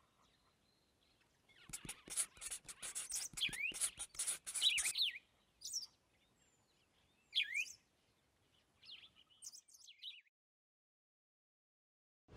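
Small birds chirping in short, quick rising calls, with a busier stretch of chirping and clicking from about a second and a half to five seconds in, then a few scattered calls that stop about ten seconds in.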